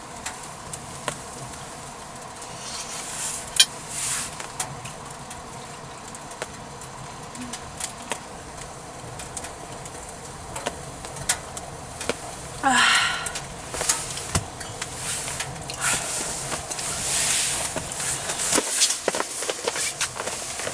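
A steady faint hum with scattered clicks, knocks and rustles of things being handled. A short sweeping swish comes a little past halfway.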